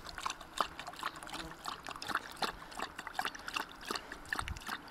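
A dog lapping water in a quick, uneven run of laps.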